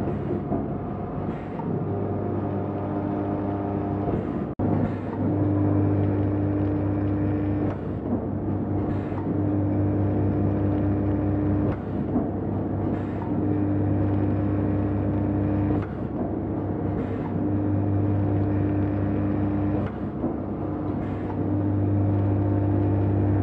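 Automatic four-side heat-sealing sachet packing machine running: a steady motor hum with a louder tone that swells and fades once per cycle, about every four seconds, with faint light ticks between. The sound cuts out briefly about four and a half seconds in.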